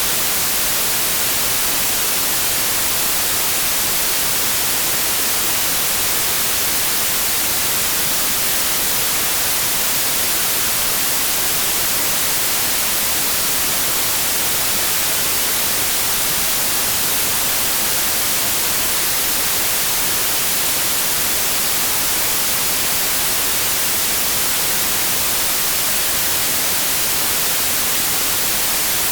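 Steady white noise: an even, unchanging hiss, brightest in the treble, used as a sleep sound for babies.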